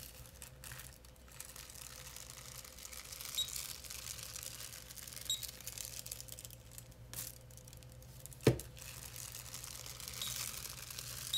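Tissue paper rustling and crinkling as a handheld inkjet printer is slid across it and hands hold the sheet flat, with a few faint short high ticks. A single sharp thump about eight and a half seconds in is the loudest sound.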